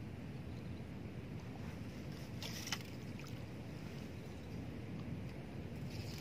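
Steady low rumble of wind on the microphone, with one sharp click a little under three seconds in.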